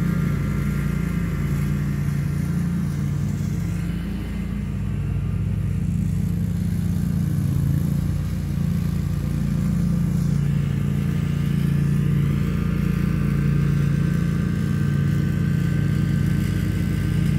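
Large lawn mower's engine running steadily: a low drone with a thin, steady higher whine over it.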